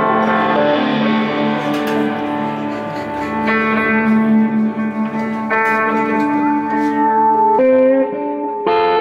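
Live blues band playing an instrumental passage, led by electric guitar holding long ringing notes that change every second or two.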